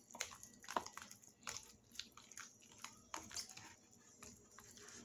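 Fork stirring a wet batter of egg, shredded cabbage and chicken in a plastic container: faint, irregular wet squishing with light clicks of the fork against the plastic.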